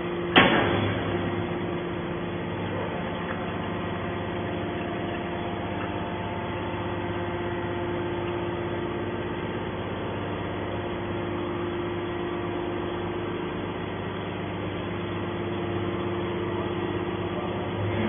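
Hydraulic scrap metal baler running with a steady hum from its pump and motor while the ram pushes a compressed bale out of the chamber. A single sharp metallic knock about half a second in.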